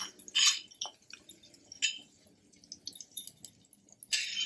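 Scrapes and clinks of a small steel tempering pan against a steel kadai as the last of the hot tadka is tipped into spinach gravy, with faint crackling from the hot oil. The sounds come in a few short bursts, about half a second in, near two seconds and near the end, with small clicks between.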